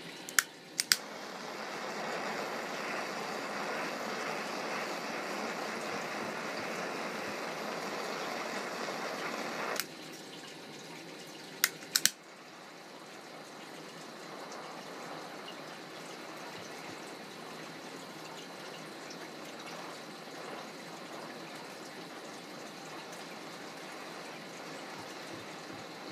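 Two sharp clicks, then a steady hiss that stops suddenly about ten seconds in. Two more clicks follow, then quieter steady water bubbling through a glass mini dab rig.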